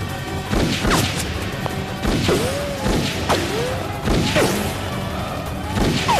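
A pistol fired several times, sharp shots about a second apart, some followed by a short whistling whine, over background music.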